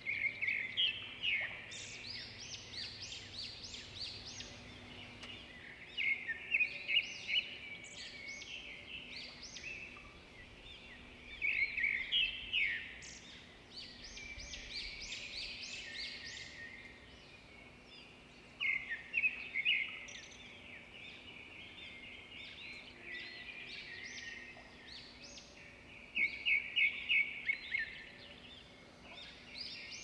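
Small songbirds: one bird repeats a short song of rapid high notes five times, about six seconds apart, over continuous fainter chirping from other birds.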